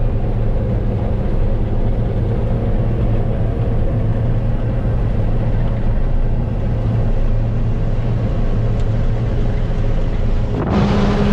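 John Deere 9770 combine running steadily: a loud, even engine drone with a constant low hum. Near the end the sound turns suddenly brighter and a higher steady hum comes in.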